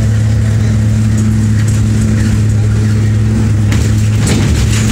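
King Long XMQ6126G 12-metre city bus heard from inside the cabin while driving, its engine giving a steady low hum. About four seconds in the hum breaks off and a rougher, noisier rattle takes over.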